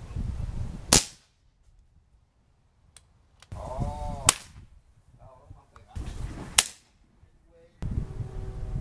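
Three air rifle shots, each a single sharp crack: one about a second in, one from a Daisy Powerline .177 about halfway through, and one about three quarters of the way through.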